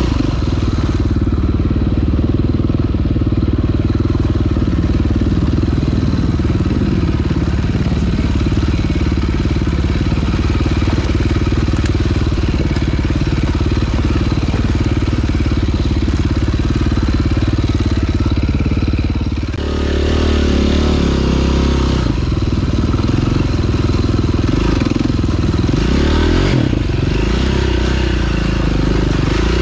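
2009 KTM 530 EXC single-cylinder four-stroke dirt bike engine running steadily under way on a trail ride. The sound eases briefly about two-thirds of the way through, and the revs rise and fall near the end.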